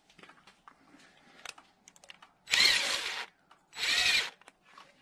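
Cordless drill/driver tightening a worm-gear hose clamp on a radiator hose, in two short runs of under a second each, about two and a half and four seconds in.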